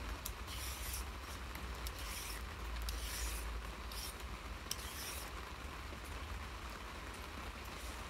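A blade scraping the skin off a raw sweet potato in short strokes, roughly one a second, as the potato is peeled.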